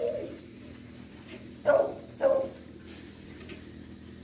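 Dog barking: the end of one bark right at the start, then two short barks in quick succession about two seconds in, typical of dogs play-fighting.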